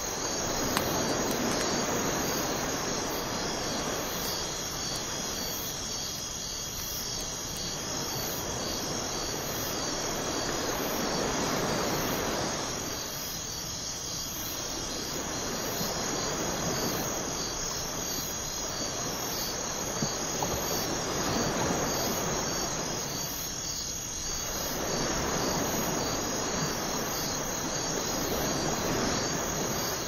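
Crickets chirping steadily over ocean surf washing onto a sandy beach, the surf swelling and easing slowly.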